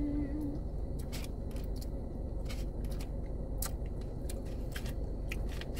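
Close-up eating sounds of someone chewing fried fast food, with small sharp mouth clicks and smacks about once a second, over a steady low hum of the car cabin. A brief closed-mouth "mm" hum comes at the very start.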